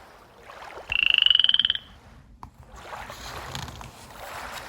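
Frog croaking sound effect: one fast pulsed trill lasting about a second, rising slightly in pitch. A small click follows.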